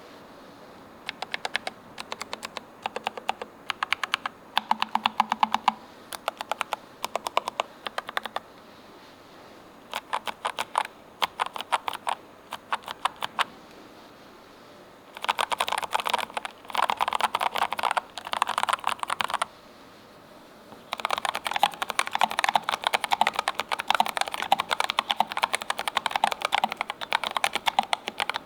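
Typing on a Keychron K3 Ultra low-profile mechanical keyboard with Milk-POM Brown switches, in short bursts of rapid key clicks with pauses between them. After a brief pause about two-thirds of the way through, the typing resumes steadily on Milk-POM Banana switches.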